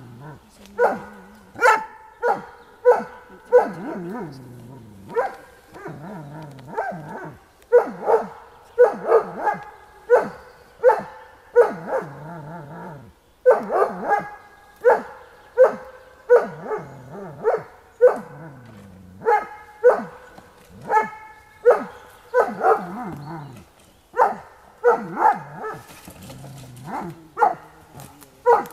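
Dobermann barking repeatedly, about one or two barks a second with a short break about halfway, at a dummy on a sled being drawn towards it.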